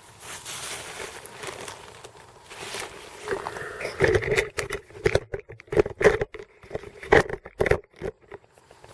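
Plastic sandwich bag rustling and crinkling, with a quick string of sharp taps and clicks from a small homemade alcohol stove being handled. The clicks crowd together in the second half.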